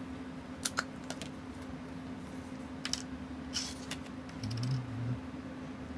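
Small, sharp metallic clicks and taps of tweezers and tiny watch movement parts being handled on the bench, about half a dozen scattered through, over a steady low hum.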